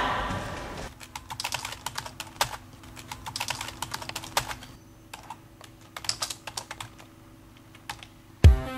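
Typing on a computer keyboard: irregular runs of quick keystroke clicks with short pauses between, over a faint steady hum. Electronic music with a heavy beat comes in near the end.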